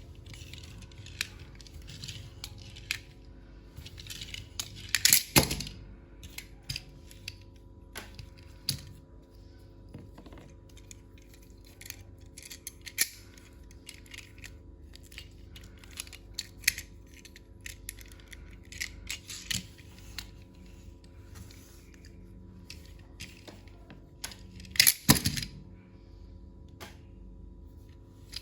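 Hands handling a plastic toy and its packaging: scattered clicks and snaps of plastic parts with short rustles, and louder bursts of rustling and clatter about five seconds in and again near the end.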